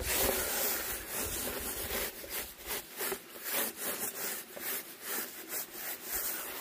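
Hand scrubbing: quick repeated rubbing strokes, about three a second, as the bottom of a container is scrubbed clean by hand.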